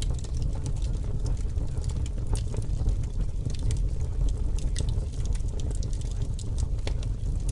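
A steady ambient background track: a continuous low rumble with irregular, sharp crackles scattered over it, the masking sound that a subliminal's affirmations are laid under.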